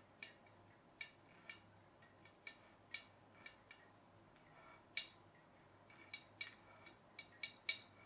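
Faint, scattered light clicks and taps of small hard objects being handled, coming more often in the last couple of seconds.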